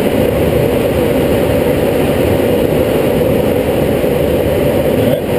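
Steady rush of air streaming over a glider's canopy and fuselage in flight: a dense, low, even wind noise that dips briefly near the end.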